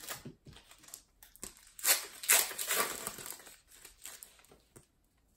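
Foil wrapper of a trading card pack being torn open and crinkled by hand: light rustles, then a loud crinkling tear about two seconds in that lasts about a second and a half before dying down to faint rustles.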